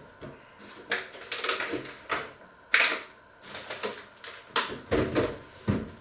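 Irregular clinks and knocks of metal kitchenware being handled in a sink, the loudest about three seconds in.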